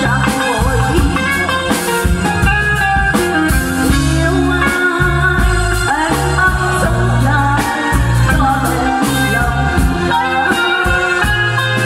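A woman singing a Vietnamese song into a microphone with a live band of electronic keyboard, drum kit and electric guitar, amplified through a PA.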